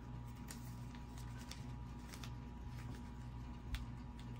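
Faint crinkling and small clicks of a clear plastic coin flip being handled, over a steady hum, with one sharper click near the end.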